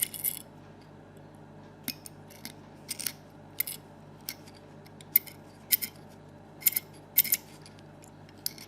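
Light metallic clicks and scrapes, irregular and about one or two a second, from the opened DC motor of an electric parking brake being turned and handled by hand; the motor has a broken brush holder and a missing carbon brush.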